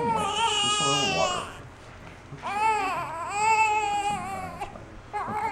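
Infant crying in two long wails with a short pause between, just after baptismal water has been poured over her head.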